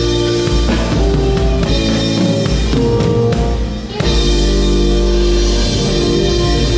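Live band music from drum kit, electric guitars and keyboards; the band thins out briefly and comes back in together with a hit about four seconds in.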